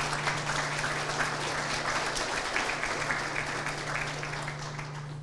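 An audience applauding with many hands clapping, swelling at the start and dying away toward the end.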